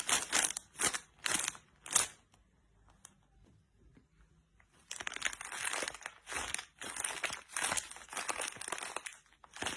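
A plastic bag being crinkled, first in several short rustles, then after a pause of a couple of seconds in a longer, continuous bout of crinkling.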